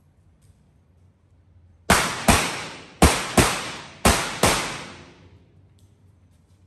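Revolver fired six times as three quick double taps, the two shots of each pair less than half a second apart and about a second between pairs. Each shot echoes briefly off the range's walls.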